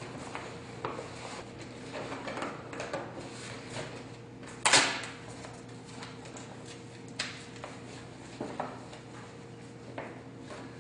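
Handling noise from assembling a photo softbox: rustling and light knocks as the rods are fitted into the speed ring and the softbox's corner pockets, with one louder clack about four and a half seconds in and smaller knocks later.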